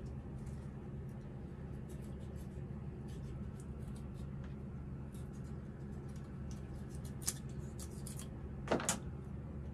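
Faint clicks and handling noises from a knife and a plucked chicken carcass being worked on a stainless steel table, with a sharp click and then a louder knock near the end, over a steady low hum.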